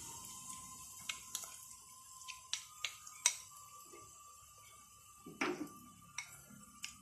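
Chopped onions and green chillies frying gently in oil in a clay pot, the sizzle fading over the first couple of seconds. Scattered light clicks and taps of utensils on crockery come through it, with a duller knock about five and a half seconds in.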